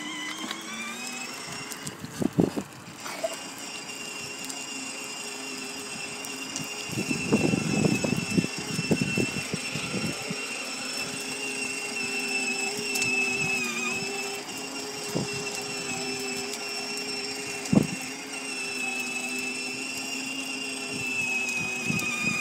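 Battery-powered ride-on toy Mercedes car's electric drive motors and gearboxes whining steadily as it drives along. Its hard plastic wheels rumble over the ground for a few seconds around the middle, with a few sharp knocks, the loudest near the end.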